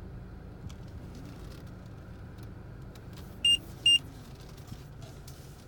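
Two short, loud electronic beeps about half a second apart, a little past the middle, over the steady low rumble of a 10th-generation Honda Civic, with faint scattered clicks.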